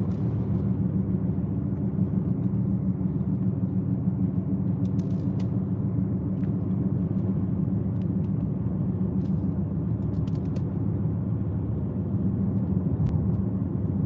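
Car driving at steady speed, heard from inside the cabin: an even, low rumble of road and engine noise.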